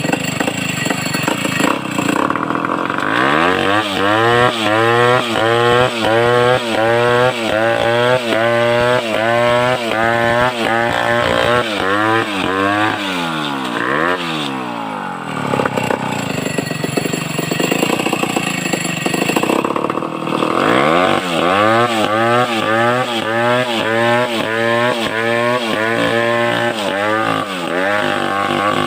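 Large home-assembled two-stroke chainsaw built on the Stihl 070 pattern, running with its engine speed rising and falling about twice a second. The pitch sags low about halfway through, then picks up and cycles again.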